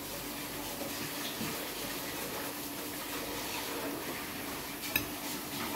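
A steady rushing hiss with a faint hum underneath. A single sharp clink of a spoon against a plate comes about five seconds in.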